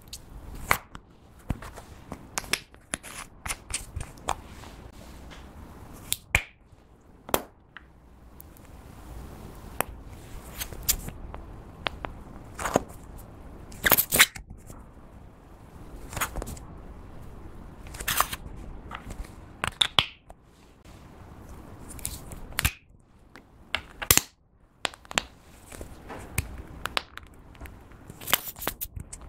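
Clear slime being squished and kneaded by hand, giving irregular sticky clicks and pops.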